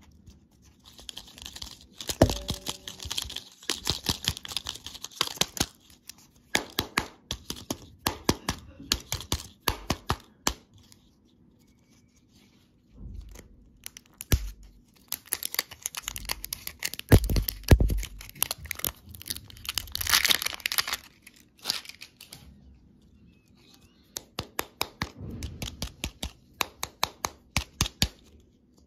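Printed wrapper on a surprise-egg lollipop capsule crinkling and tearing as fingers peel it off. The crackling comes in several bursts with short pauses between.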